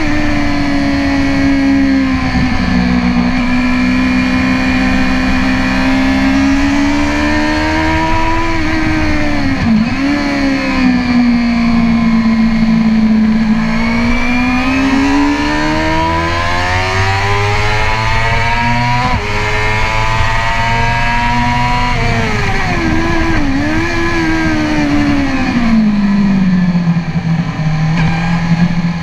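Suzuki GSX-R inline-four sport-bike engine heard from on board while lapping a race track: the revs climb and fall over and over with the throttle, dropping sharply at gear changes, with downshifts and a quick blip as it slows near the end.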